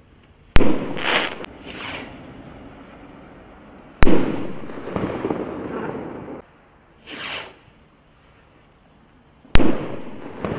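Zeus Fireworks Moonraker firework rockets: short hissing launches, and three sharp bangs as rockets burst about half a second, four seconds and nine and a half seconds in, each bang fading away over a second or two.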